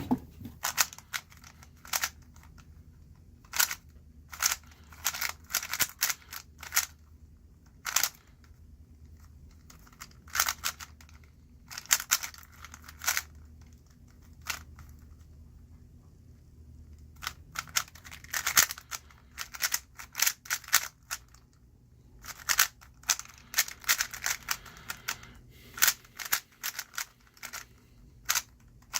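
Plastic 3x3 speed cube being turned fast, its layers clicking and clacking in quick bursts broken by short pauses.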